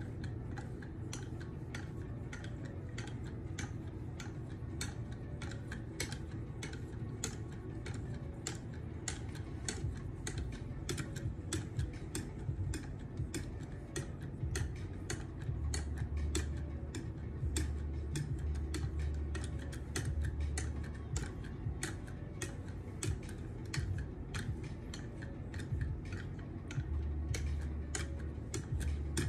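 1-micron (16,000 grit) sharpening stone on a KME guided sharpener's carrier being stroked along a steel knife edge, giving an irregular run of light clicks and scrapes, several a second. A steady low hum runs underneath.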